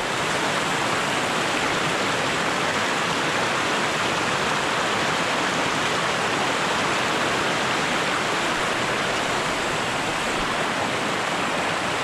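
A small mountain stream rushing over rocks and little cascades: a steady, even rush of water.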